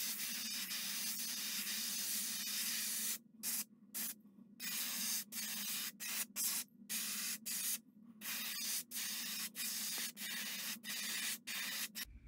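Gravity-feed airbrush spraying opaque white paint onto a wooden lure: a steady hiss of air and paint, one long spray for the first three seconds, then many short sprays broken by brief pauses as the trigger is let off and pressed again. A steady low hum runs beneath.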